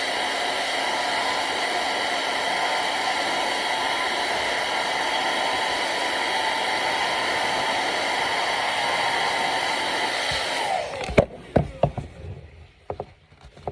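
Hair dryer blowing steadily on high, heating a plastic decoy so its head will fit. About eleven seconds in it is switched off and its motor winds down, followed by several sharp knocks and clicks.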